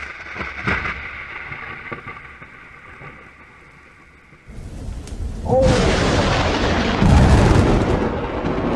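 Thunder: after a quieter stretch with a few small clicks, a loud clap of thunder breaks in about halfway through and goes on as heavy rumbling, loudest near the end, over rain.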